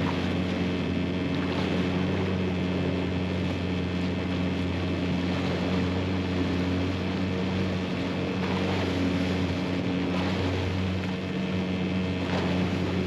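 Motorboat engine running steadily underway, a constant low hum, with water rushing and churning in the boat's wake.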